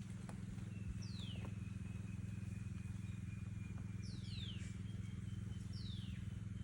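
A bird calling: short whistled notes that slide quickly downward, four in all, the middle two close together. A steady low hum runs underneath.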